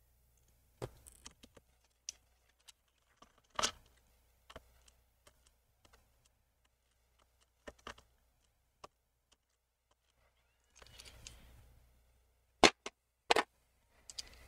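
Small screwdriver clicking and tapping against the screws and plastic bottom cover of a laptop as the screws are worked loose. The clicks are scattered and separate, with a short rustle of handling and two sharper clicks near the end.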